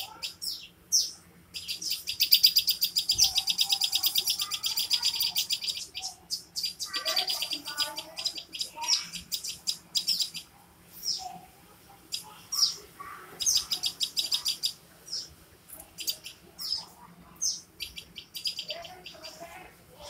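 Small songbirds chirping: two long runs of fast, high chirps, many a second, in the first half, then scattered single sharp chirps that drop in pitch.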